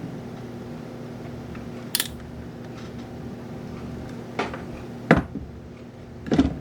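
A few sharp clicks and knocks of small parts and tools being handled during a lamp teardown, the loudest two near the end, over a steady low hum.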